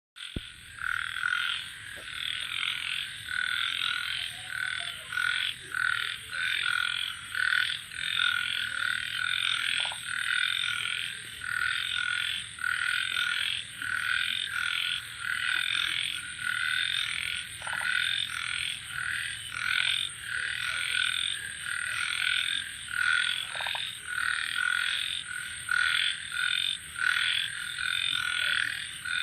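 An evening chorus of many frogs croaking over one another in quick, repeated calls, with a steady high-pitched cricket trill behind them.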